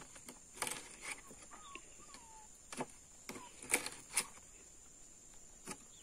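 A kitchen knife tapping on a wooden cutting board as small fish are cut: about six separate sharp knocks spread irregularly, over a faint steady high-pitched background hum.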